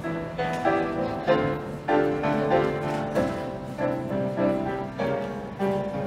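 Piano music: a steady run of struck chords and melody notes, a new note or chord roughly every half second to second.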